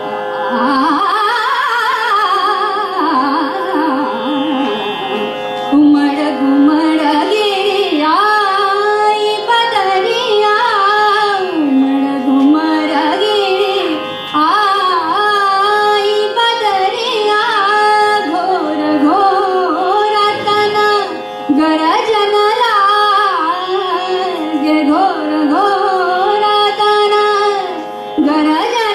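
A woman singing a Hindustani classical composition in Raag Megh, her voice gliding and ornamenting through melodic phrases over a steady drone.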